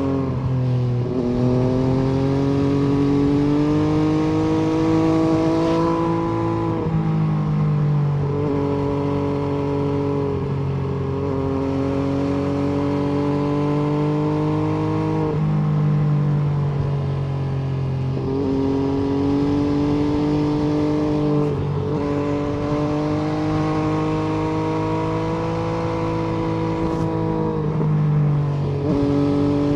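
MV Agusta F3 800's three-cylinder engine and exhaust under way. The pitch climbs gently and then drops sharply at each of several gear changes.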